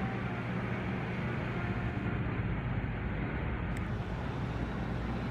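A large passenger ferry's engine running with a steady low drone, under a constant rushing noise of the moving boat.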